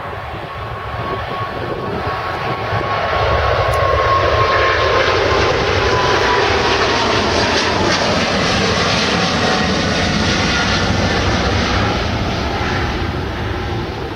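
Boeing 777-200ER's twin GE90 turbofans at takeoff thrust as the airliner lifts off and climbs out: a loud jet roar that builds over the first few seconds, holds steady, and eases near the end. A fan whine slowly falls in pitch as the aircraft passes.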